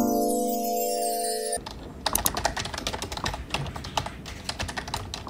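A held chord from a short music jingle cuts off about a second and a half in. Then fast, irregular typing on a computer keyboard, keys clicking.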